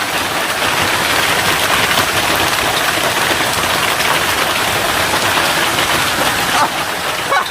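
Hail pelting a car's roof and windshield in a dense, steady clatter of countless small impacts.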